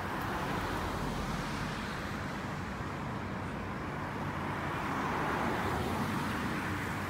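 Road traffic noise from passing cars, a steady rush that swells twice as vehicles go by, about a second in and again past the middle.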